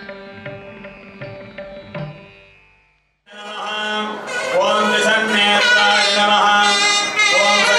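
Indian devotional music with a steady drone and sharp percussion strokes fades out to silence about three seconds in. A louder passage then fades in: melodic lines that rise and fall over a steady drone.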